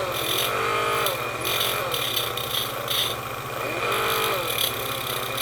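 Small die grinder running, its whine sagging in pitch and recovering several times as it is pressed against the chainsaw chain's drive links, with short bursts of grinding hiss. It is grinding off the raised edges on the links so they will sit down in the bar groove again.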